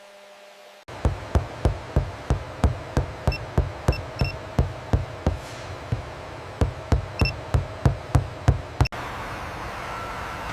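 A steady run of sharp knocks, about three a second, that stops abruptly after about eight seconds and gives way to a steady hum.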